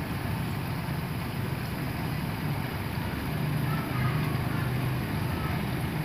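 Steady low rumble under a faint even hiss, swelling slightly in the middle.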